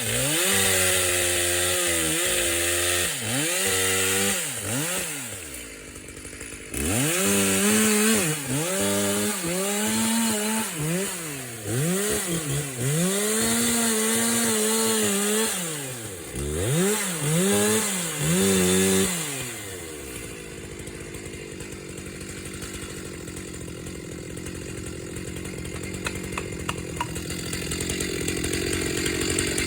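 Chainsaw cutting into a dead wattle trunk, its engine pitch repeatedly sagging under load and rising again. It dips briefly about six seconds in, and from about twenty seconds in it runs steadier and quieter, building again near the end.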